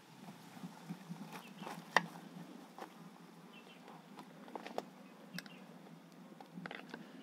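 Scattered light knocks and clicks of bamboo pieces being handled and set down on a bamboo table, with one sharper knock about two seconds in.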